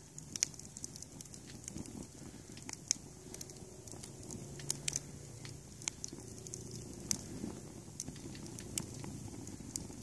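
Kiln-dried kindling burning in a metal ice-bucket fire pit, crackling with sharp, irregular pops and snaps over a steady low rumble of flame.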